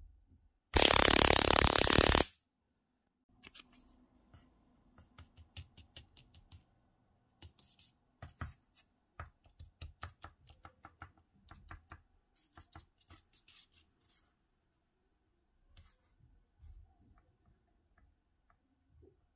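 Homemade electric mouse trap set off by motion in front of its motion sensor: a loud burst of harsh noise for about a second and a half, then a long run of irregular sharp clicks that thin out towards the end.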